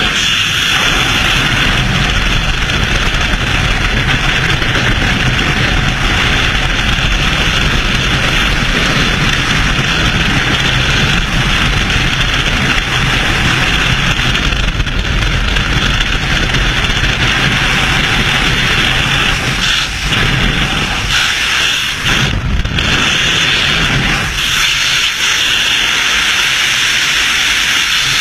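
Loud, steady rush of freefall wind buffeting a helmet-mounted camera's microphone, easing for a moment a few times near the end.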